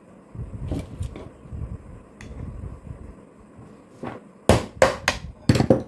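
A cooler fan motor with its through-bolts removed, knocked lightly to free the end cover and rotor from the housing. First a few seconds of rough handling and scraping, then about five sharp knocks close together in the last two seconds.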